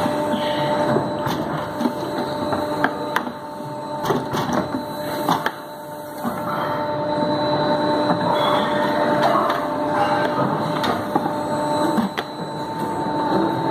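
Plastic injection moulding machine running with a steady hum of several tones. Irregular sharp knocks and clatter come through it as moulded plastic buckets are handled and stacked.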